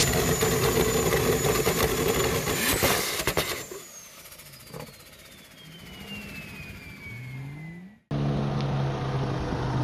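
A car engine, loud at first with a few sharp cracks about three seconds in. It then drops away under a long, steadily falling whistle. After a sudden cut, an engine drones steadily.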